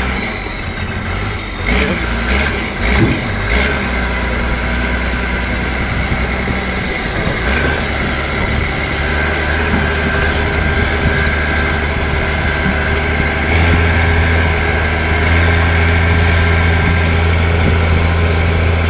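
Army truck's engine running as the truck drives slowly, heard from its open cab, with a few sharp knocks about two to three and a half seconds in. The engine gets louder about two-thirds of the way through.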